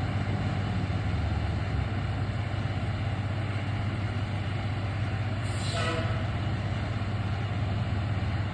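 Large fire truck's diesel engine running with a steady low rumble. A brief sharp sound cuts in about five and a half seconds in.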